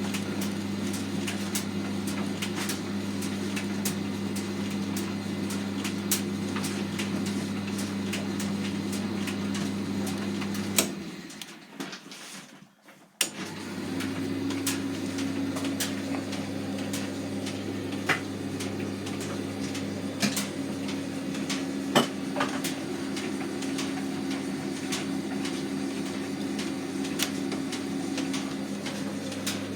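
Hotpoint FETV60 tumble dryer running on a newly fitted drum bearing: a steady low hum with irregular sharp clicks and knocks. About a third of the way in it stops for about two seconds, then starts up again with a slightly different tone.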